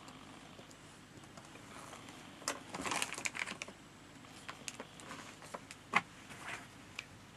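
Small clicks, taps and light rustling from craft supplies being handled on a work surface. There is a dense flurry of clicks about two and a half seconds in, then single taps about every half second, the sharpest one about six seconds in.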